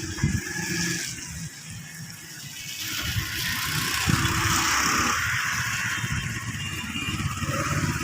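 Traffic on a wet road: a vehicle's tyre hiss swells to a peak about halfway through and eases off again, over a low, uneven rumble.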